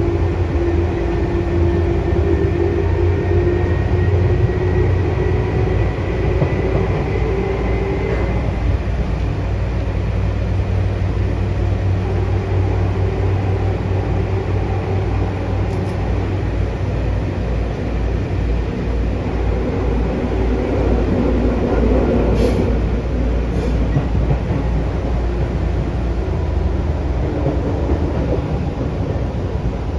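A Hitachi chopper-controlled Tokyu 8500 series train running through a subway tunnel, heard from inside the passenger car as a steady loud rumble. In the first several seconds a thin whine rises slightly and then fades, and a few sharp clicks come past the middle.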